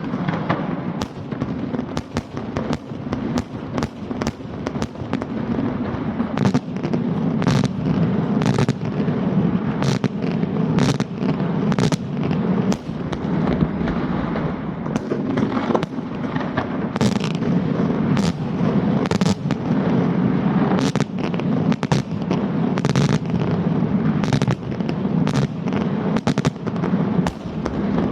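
Fireworks barrage (Italian scarica) by Paolelli: shells bursting in rapid succession, a continuous rumble overlaid with many sharp cracks, several a second.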